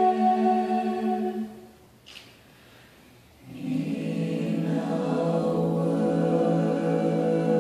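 Choir singing a held chord that is released about a second and a half in; after a short pause a new chord enters, with low voices underneath, and is held.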